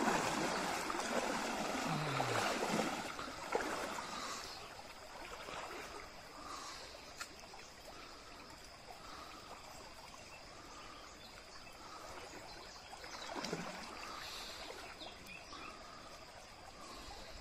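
Shallow stream water sloshing and trickling around a person wading in it. It is louder in the first few seconds, then settles to a quieter steady trickle, with another short swell about 13 seconds in.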